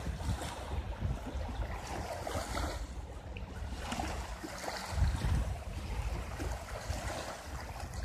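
Small lake waves lapping and washing over a pebble shore, with gusts of wind buffeting the microphone, strongest about five seconds in.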